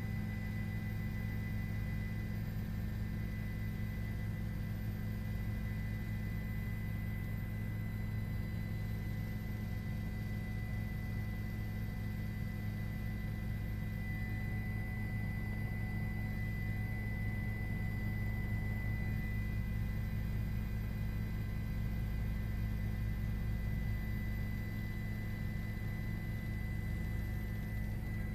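Steady low hum with a faint, steady high tone above it, unchanging throughout.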